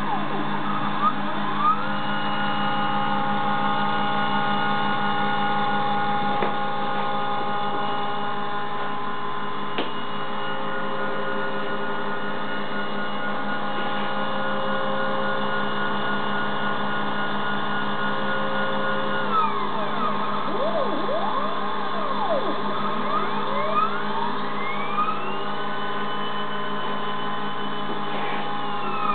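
Stepper motors of a CNC tool-and-cutter grinder whining at steady pitches as the diamond wheel feeds along an end mill flute while the cutter turns to follow the spiral, over a steady motor hum. About two-thirds in, several whines rise and fall quickly as the axes move back to the start and the cutter indexes to the next flute, then a new steady feed begins.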